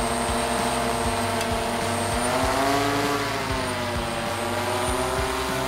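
Inspired Flight IF1200 heavy-lift drone's rotors whining in a steady hover, carrying a hydraulic cutter. The pitch rises about two and a half seconds in and settles back a second later as the drone lifts the tool away from the pole.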